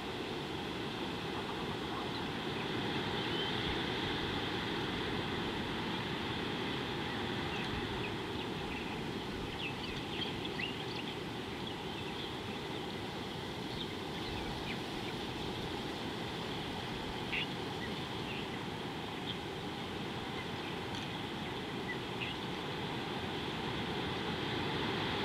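Steady outdoor background rumble and hiss of open bush, with a few short high chirps about ten seconds in, again around seventeen seconds and near the end.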